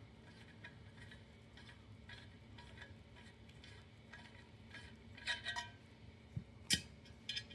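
Light metallic clicks and clinks from handling the Tac 9 pistol's threaded linear compensator as it is twisted off the barrel. There is a small cluster of louder clinks about five seconds in and a single sharper clink near the end.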